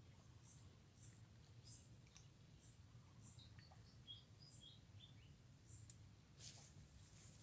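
Faint scattered bird chirps and short high calls over a low, steady background hum, with a brief hiss about six seconds in.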